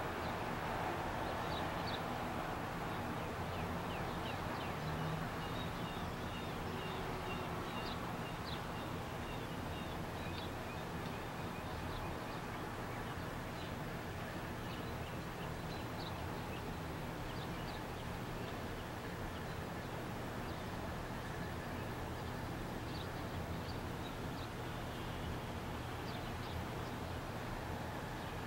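Steady outdoor background of distant rumble and hiss with a low hum, and faint short bird chirps scattered through it.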